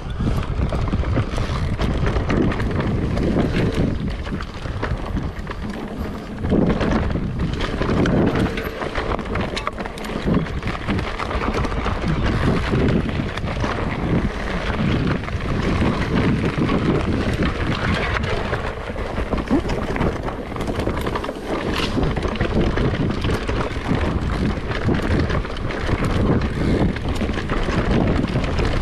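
Mountain bike riding down a rough dirt forest trail: wind buffeting the microphone over the tyres rolling on the dirt, with a constant clatter of knocks and rattles from the bike as it runs over roots and bumps.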